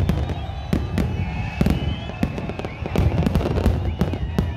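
Fireworks going off in rapid, irregular bangs and crackles over a constant low rumble, with thin high whistling tones joining about a second in.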